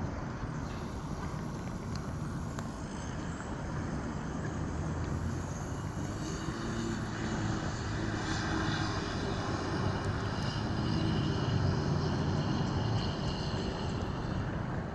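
Steady low engine drone that swells louder about eleven seconds in, over a low rumble of wind on the microphone.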